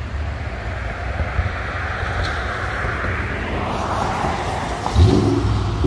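A 2005 Mustang GT's 4.6-litre V8 exhaust, breathing through long-tube headers and a catted H-pipe, runs low and steady as the car drives slowly past on a wet road. Tyre hiss swells and fades, and the exhaust gets louder about five seconds in.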